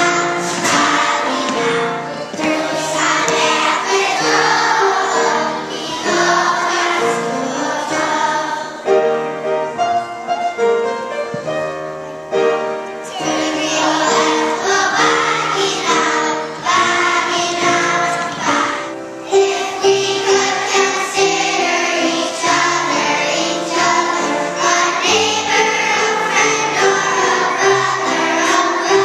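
A group of second-grade children singing a song together, with a brief lull in the voices about nine seconds in.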